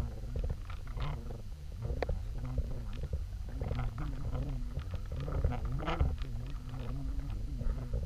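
Underwater recording of the towing boat's motor during trolling: a steady low drone with a slightly wavering hum, plus a few short clicks.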